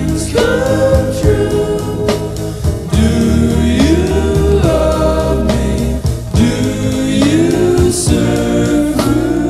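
Recorded pop music: layered, choir-like sung harmonies holding long notes and sliding between pitches, over a bass line and a steady beat.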